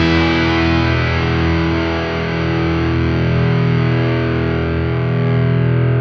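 Music: a distorted electric guitar chord held and left ringing through an effects unit, steady in pitch.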